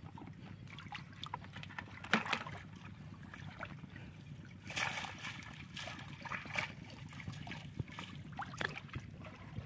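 Shallow river water splashing and dripping as a collapsible mesh fish trap is lifted and shaken in it. The splashes are short and irregular, with a sharper one about two seconds in.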